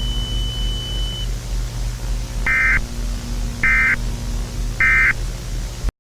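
Emergency Alert System end-of-message code: three short digital data bursts about a second apart, marking the end of the alert, over a steady low hum. The audio cuts off abruptly just before the end.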